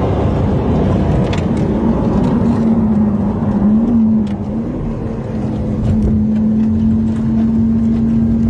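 Lamborghini Aventador's V12 heard from inside the cabin at speed, over wind and tyre noise. Its note wavers about three to four seconds in, dips a little in loudness, then holds steady.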